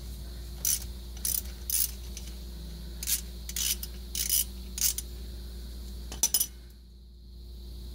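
3/8-inch drive ratchet clicking in about eight short bursts as it backs out a differential drain plug, with the last burst about six seconds in.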